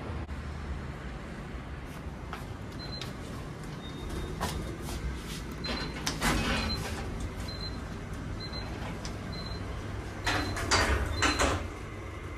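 GoldStar passenger lift from 1995: short high electronic beeps about once a second over a steady low hum, then the car doors sliding shut with a cluster of knocks about ten seconds in.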